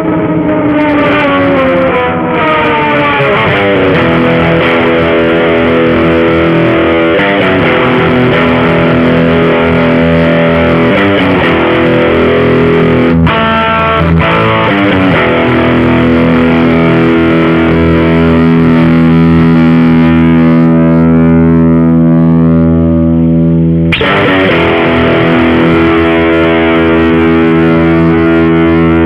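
Electric guitar played through a JOYO Deluxe Crunch overdrive pedal, ringing out distorted sustained chords. It opens with a slide down in pitch, has a brief break about halfway through, and a fresh chord is struck later on.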